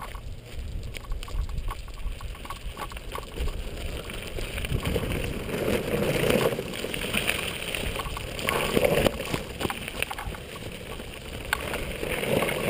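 Mountain board air tyres rolling over a gravel and dirt road, a steady rumble with scattered crunches and knocks from the stones, swelling louder a few times as the board picks up speed or the stick pushes against the ground.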